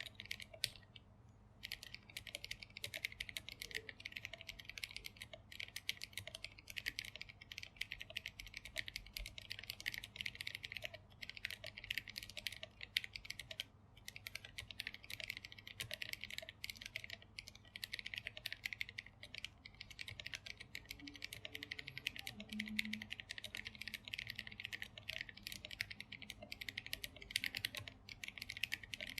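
Fast typing on a mechanical keyboard: an Arisu Alice-layout board in an acrylic case, with Krytox-lubed Durock T1 tactile switches and SA profile keycaps, giving a dense stream of keystrokes broken only by a couple of brief pauses.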